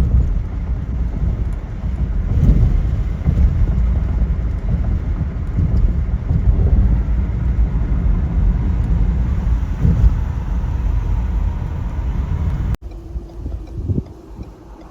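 Steady low rumble of wind buffeting the microphone. It cuts off abruptly near the end, and a quieter rush of wind follows.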